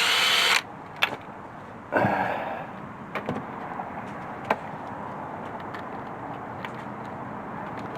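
Hand tools working on engine hardware: a short rasping burst at the start, a sharp click about a second in, a clunk about two seconds in, then a few scattered metallic clicks over a steady low background.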